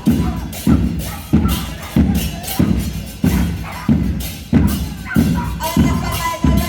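Murga percussion playing while parading: bass drums and cymbals beating a steady loud rhythm, a heavy stroke about every two-thirds of a second with lighter hits between.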